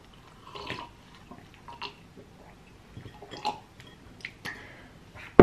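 Spoon scooping freshly baked brownie from its dish: soft scrapes and scattered light taps, ending with one loud sharp clink.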